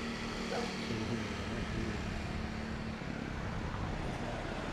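Steady outdoor rumble with a distant engine's low, even hum, which stops about three seconds in.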